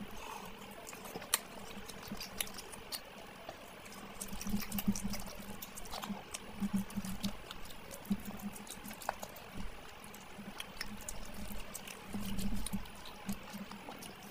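Close-miked wet eating sounds from mutton curry and rice eaten by hand: chewing and lip smacking, a steady run of small sticky clicks and squelches, with low mouth sounds coming in short bursts.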